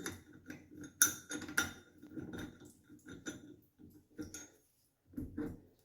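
Irregular metal clicks and clinks of a 4 mm Allen key turning in the locking screw of a chrome shower handle as it is loosened, with the handle knocking as it is worked free; the sharpest clinks come about a second and a second and a half in.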